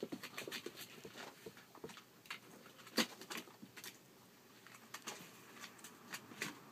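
Rough collie puppies scuffling and wrestling, their paws and bodies making scattered irregular taps, scrapes and knocks on wooden boards and blankets, with one sharper knock about three seconds in.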